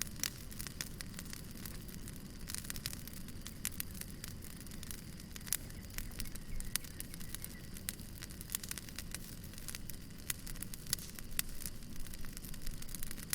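Wood fire crackling, with frequent irregular sharp pops and snaps over a steady low rumble of flame.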